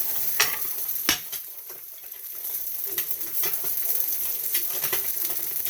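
Breakfast sausages and eggs sizzling in a frying pan, with sharp clicks and scrapes of a utensil against the pan as the food is turned over. The sizzle drops briefly after the second click, then comes back.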